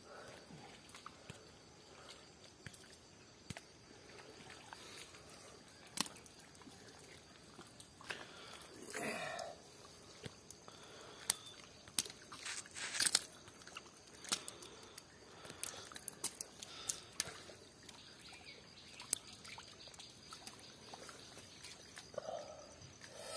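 Hands working through wet pond mud and shallow muddy water: squelching, sloshing and dripping, with scattered small clicks and splats and a few brief louder splashes around the middle.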